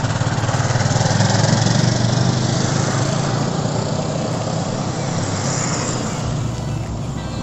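A motorcycle engine passing close by and pulling away, its sound loudest in the first couple of seconds and then slowly fading, over steady wind noise on the microphone.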